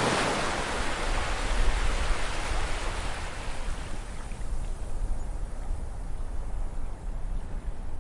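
Ocean surf: a wave breaks right at the start and its hissing wash fades away over the following seconds, over a steady low rumble of surf.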